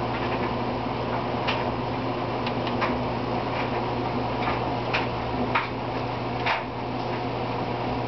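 Light, irregular clicks and taps of a kitten's paws and claws stepping on a plastic hamster cage lid, about eight over several seconds, over a steady low hum.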